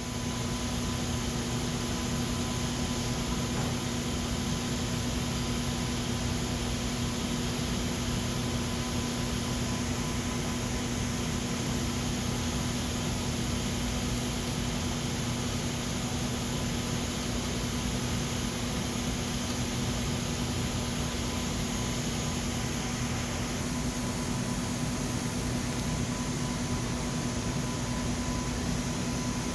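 Laser welding machine running with a steady fan-like hiss and a constant low hum. It comes up just at the start and holds level throughout.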